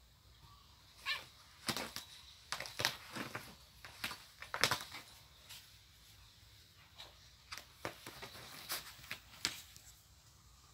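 Two cats play-fighting over the edge of a fabric-covered mattress: quick scratches and scuffs of claws and paws, a dense run in the first half and a few more later on.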